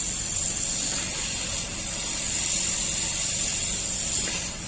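Hot air rework gun blowing on a high setting to melt the solder of a laptop hard drive connector: a steady hiss with a strong high band, dropping a little in level near the end.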